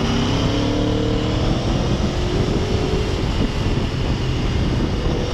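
Aprilia Tuono V4 Factory's engine running at road speed under heavy wind rush, its note easing down slightly over the first seconds.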